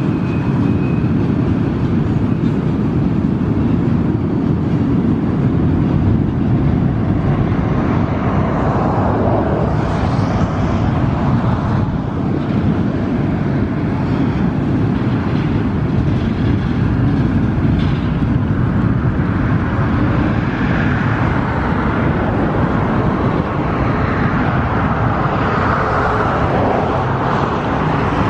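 Freight train cars rolling across a steel truss railway bridge: a steady low rumble with no clear rhythm.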